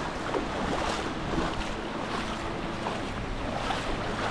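Seaside ambience: surf washing on the beach and wind on the microphone, with a steady low motor hum under it.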